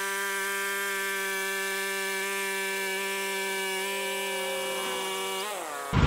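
Woodland Mills HM130 Max portable bandsaw mill, its Kohler gas engine at full throttle driving the band blade through a log: a steady high whine that winds down near the end as the throttle drops at the end of the cut.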